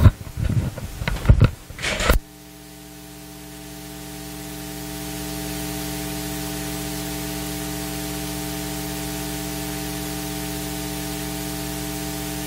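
A few loud, short knocks and rustles close to the microphone for about two seconds, then the sound cuts abruptly to a steady electrical mains hum with static hiss that swells over a few seconds and then holds.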